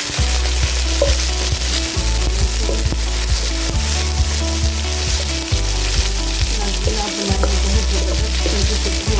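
Chicken pieces frying in mustard oil in a karahi, with a steady dense sizzle.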